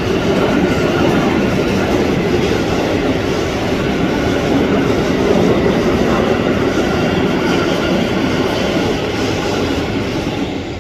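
Covered bogie freight wagons of a freight train rolling past at speed: a steady, loud rolling noise of wheels on rail that starts to fade near the end as the last wagon goes by.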